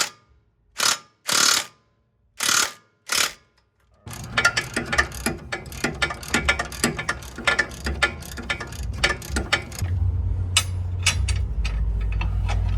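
Ratchet wrench working a suspension bolt on the lower control arm: four short bursts of ratcheting, then from about four seconds a long run of rapid clicks as the bolt is spun in. A low steady hum comes in near the end.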